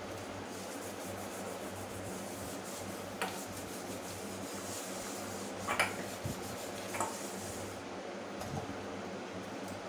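Hand-scrubbing of steel dishes at a stainless-steel sink, a steady rubbing hiss, with a few sharp clinks of steel utensils knocking together; the loudest clink comes about six seconds in.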